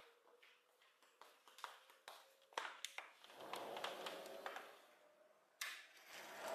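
A scatter of light taps and clicks, busiest in the first three seconds, with one sharper click about five and a half seconds in.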